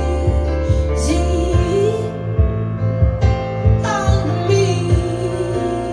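A slow song played back through a pair of floor-standing hi-fi loudspeakers in a demo room: a sung melody over deep bass notes and a soft, regular beat of about two a second.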